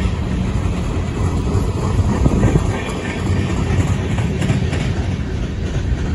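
Empty coal hopper cars of a freight train rolling past on the rails: a steady low rumble of wheels and car bodies, with a few faint clicks.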